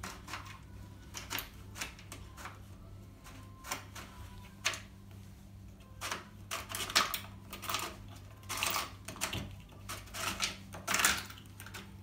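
Irregular clicks, scrapes and rattles of a washing machine's plastic drain pump filter being worked loose and pulled by hand. They are sparse at first and get busier and louder from about halfway through, over a faint low hum.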